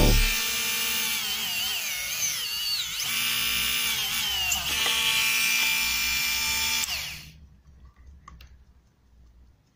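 Stal MG 1820 mini rotary engraver's small motor running at high speed, its whine wavering slightly in pitch. About seven seconds in it stops and winds down over about half a second.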